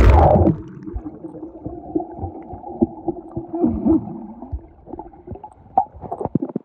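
A splash as the phone plunges into pool water, then muffled underwater gurgling and bubbling, with the higher sounds cut off as heard by a submerged phone microphone.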